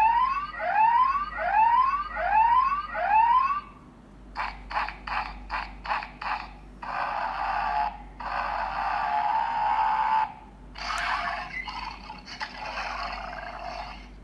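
A toy figure's built-in sound effect playing recorded animal calls through a small speaker. It opens with five loud rising whoops, then a quick run of about seven short calls, then two longer stretches of harsh, noisy screeching.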